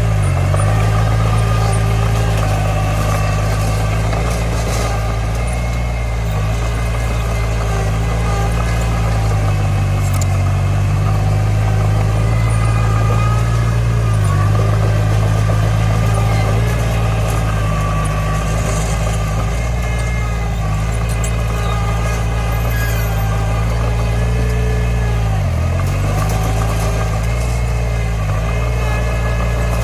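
Komatsu D20 bulldozer's diesel engine running steadily, its pitch dipping briefly a few times.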